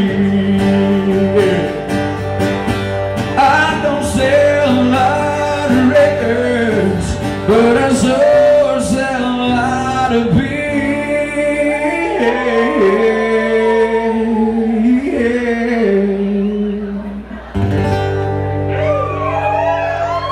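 Live country band playing: strummed acoustic guitar and electric guitars, with a man singing.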